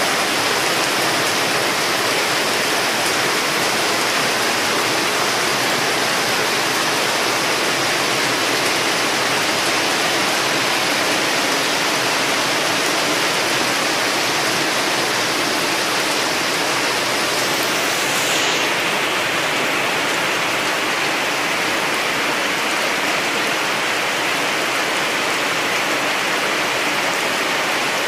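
Heavy monsoon rain falling steadily, with water pouring off the roof edge just overhead. The highest part of the hiss eases slightly about two-thirds of the way in.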